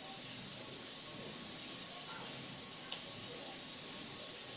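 Small 4-inch paint roller rolling wet paint across a wall: a steady hiss, with one light tick about three seconds in.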